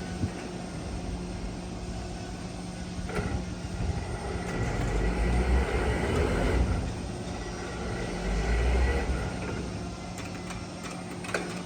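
Heavy machinery running with a steady hum, its low rumble swelling louder twice in the middle, with a few short knocks.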